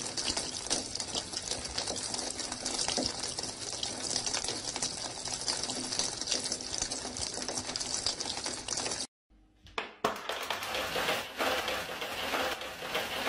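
Water leaking through a ceiling light fixture in many streams and splashing down onto steel kitchen counters: a dense, steady pattering. It cuts off about nine seconds in, and after a second of silence a different, unidentified noise follows.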